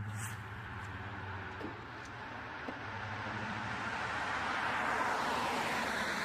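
Motor vehicle noise, a broad rushing sound that swells to its loudest about five seconds in, over a low hum early on.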